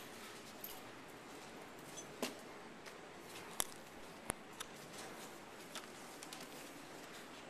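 Handling noise: scattered sharp clicks and soft taps over a steady room hiss, the sharpest about three and a half seconds in, as a handheld camera is moved and books are handled at a shelf.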